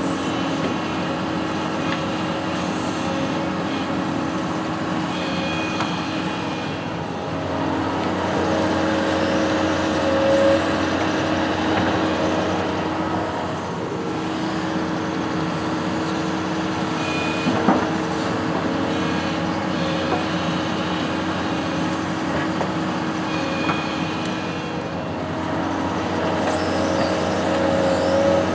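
Construction machine's engine running steadily under light changes of load, with one short knock about two-thirds of the way through.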